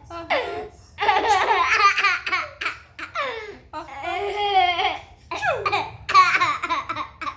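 Baby laughing in several high-pitched bursts with short breaths between them.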